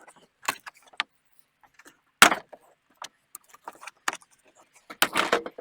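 Scattered clicks, scrapes and clatter of hand work on a plastic truck bumper valance, with a sharp knock about two seconds in and a burst of clatter near the end.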